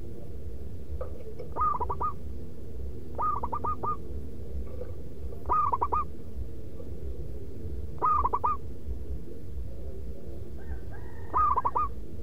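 Zebra dove (perkutut) cooing: five short phrases, each a quick run of about four notes, coming every two to three seconds, over a steady low hum.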